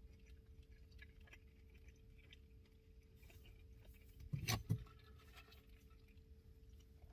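Faint chewing and small mouth clicks of a person eating a turkey sub, with one brief louder mouth sound about four and a half seconds in, over a faint steady electrical hum.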